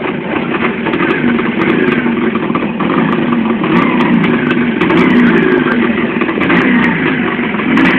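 ČZ 350 two-stroke motorcycle running under way, with a steady hum that the rider suspects is a worn bearing, in a wheel or in the gearbox.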